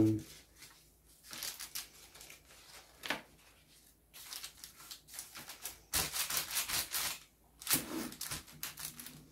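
Hands smoothing and pressing a sheet of paper down into a metal baking tray, the paper rustling and crinkling in a series of irregular strokes.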